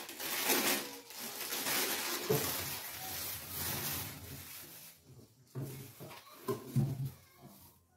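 Thin plastic produce bags rustling and crinkling as they are handled and packed into a plastic crisper drawer, with a few short, lower sounds near the end.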